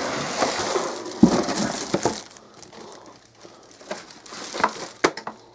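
Clear plastic bag wrapping a vacuum cleaner crinkling as the wrapped vacuum is lifted out of its cardboard box, with a thump a little over a second in. Then fainter scattered crackles, and a couple of sharp clicks near the end.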